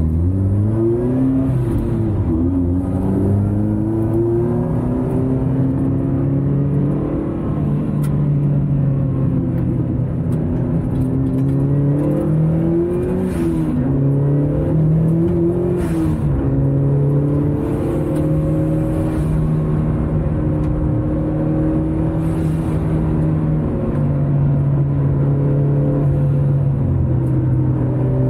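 Car engine heard from inside the cabin, accelerating hard on a race track: the pitch climbs and drops back several times as it goes up through the gears, then runs steadier at speed near the end.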